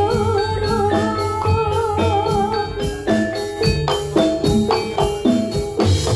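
Javanese gamelan ensemble playing a jathilan piece: struck bronze metallophones ring out a steady, even pattern of notes over low drum strokes. A wavering, held melody line sounds above them for the first half, then drops out.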